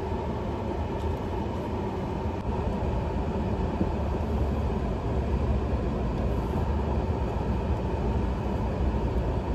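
Steady road noise inside a moving car's cabin, a low rumble.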